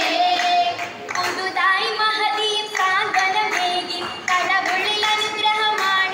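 Oppana performance: a group of girls singing a Mappila song in chorus, with steady rhythmic hand claps keeping time.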